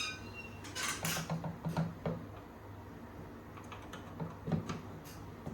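Parts being handled and fitted inside an opened electronic keyboard during reassembly: a scattered series of light clicks, taps and small knocks, bunched about a second in and again near the end.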